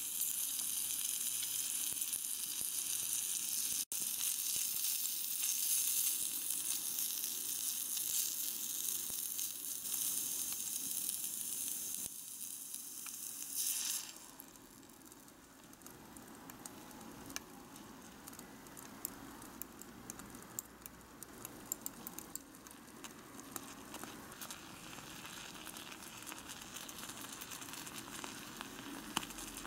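Shrimp and vegetables sizzling in butter in a tiny miniature saucepan, with a loud, even hiss. About halfway through, the sizzle cuts off suddenly as milk is poured in. What follows is a much quieter bubbling simmer with scattered small clicks of a little spoon.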